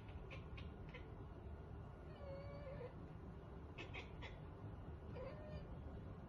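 A domestic cat meowing faintly: one drawn-out, wavering meow about two seconds in and a shorter one near the end, with a few soft ticks in between.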